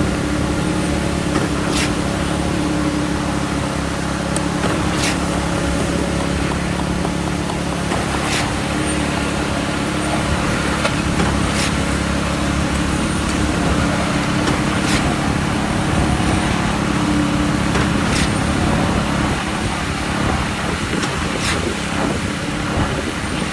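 Schwing 42 truck-mounted concrete pump running steadily on its diesel engine, with a sharp knock about every three seconds as the pump changes stroke.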